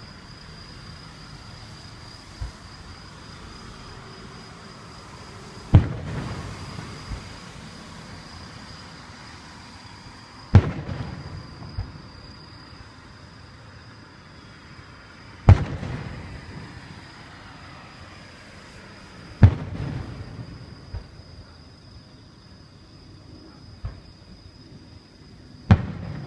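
Aerial fireworks shells bursting: five loud booms at intervals of roughly four to five seconds, each trailing off in a rumbling echo, with fainter thumps in between.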